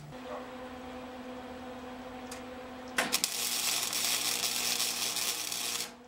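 A welder's arc crackling and hissing for about three seconds as a tack weld is laid on a harness bar, starting about three seconds in and cutting off abruptly. Before it, a steady low hum.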